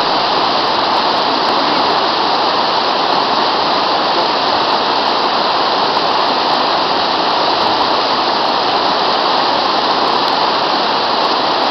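Fast-flowing mountain river rushing over rocks, loud and steady.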